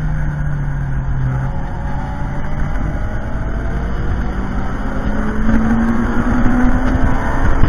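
Toyota MR-S with a swapped-in 2ZZ four-cylinder engine heard from the cockpit at track pace: the engine note falls in the first second and a half, then climbs steadily under acceleration and dips again near the end.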